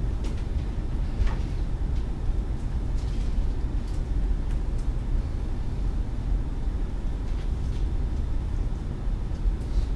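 Steady low rumble of room background noise, with a few faint clicks.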